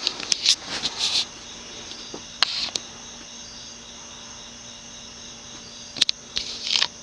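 Wing-TAT CF1 industrial ceiling fan's cast aluminum motor running on low, a steady hum with a thin high whine. It is still slowly coming up to speed, as these round-motor fans take a long time to do. A few sharp clicks or knocks come about a second in, around two and a half seconds, and twice near the end.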